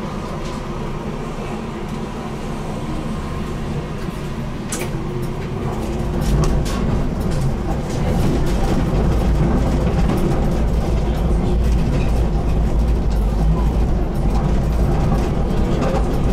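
BN GTL8 articulated tram running along its track, a steady low rumble with faint scattered clicks that grows louder about six seconds in and stays up.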